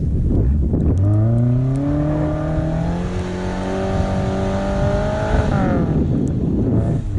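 Suzuki SJ410's small four-cylinder engine revving under load. From about a second in its pitch climbs steadily for several seconds, then it drops off near the end, leaving a low rumble.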